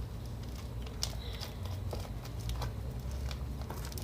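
Slime with styrofoam beads being squeezed and pulled by hand, giving scattered small clicks and bubble pops.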